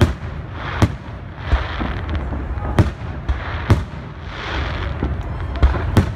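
Fireworks display: aerial shells bursting in a string of about six sharp bangs at uneven gaps, over a continuous rush of noise between them.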